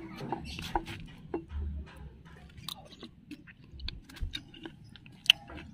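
A person chewing tender beef tripe, with small wet mouth clicks and soft irregular sounds.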